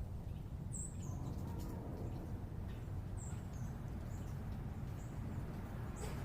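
A small songbird giving short, high chirps, about five or six times, some as a quick two-note drop, over a steady low rumble of distant city background noise.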